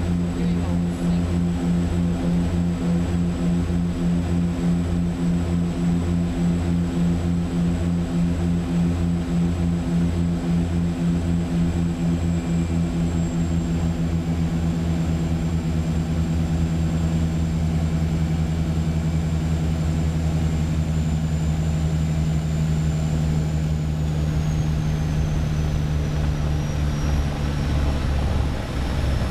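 Turboprop seaplane's engines and propellers droning steadily, heard inside the cockpit, with a regular throbbing beat in the low drone and a faint high turbine whine. Near the end the whine slides down in pitch and the drone drops a little as engine power comes back.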